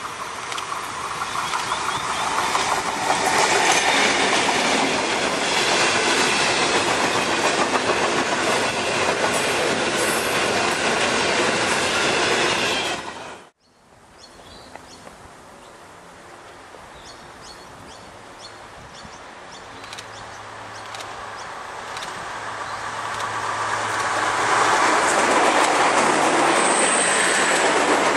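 A diesel-hauled freight train approaches and runs past, its wheels clattering on the rail joints with steady squealing; the sound cuts off abruptly about halfway through. A diesel passenger railcar is then heard faintly at first, its engine drone and wheel noise growing steadily louder until it passes close by near the end.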